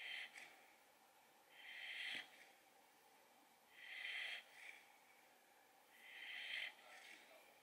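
Boxer puppy's faint noisy breathing in deep sleep: a half-second rush of air about every two seconds, each followed by a smaller puff.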